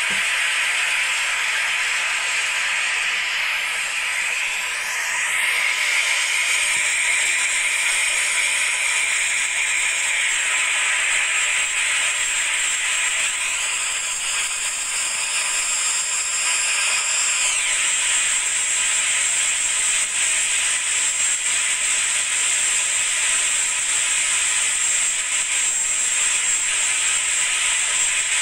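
Engine-room machinery of a ship running, a loud, steady hissing noise with a thin high whine and no breaks.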